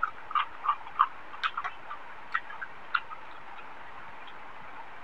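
Close-miked chewing of a mouthful of rice eaten by hand: a quick run of short wet mouth clicks and smacks, thinning out after about three seconds.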